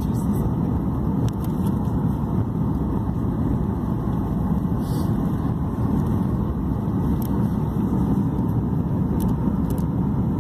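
Steady rumble of cabin noise inside a Boeing 737 MAX-8 on approach: its CFM LEAP-1B engines and the airflow over the fuselage, heard through the window seat.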